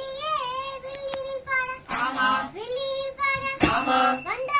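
Children singing a villu paattu (Tamil bow-song) in a high, drawn-out melody, a lead child voice holding long wavering notes. Twice, about two seconds in and near the end, short jingling bursts from the bells on the bow come in, with lower voices joining briefly.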